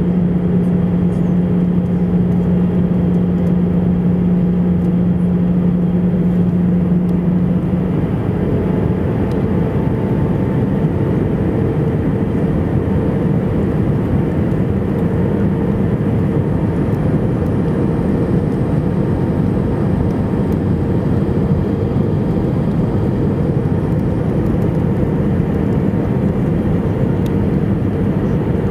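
Airbus A321 cabin noise heard from a window seat over the wing while descending on approach: a steady rush of airflow with the engines' drone. A low hum fades about eight seconds in, and a higher steady tone comes in a few seconds later.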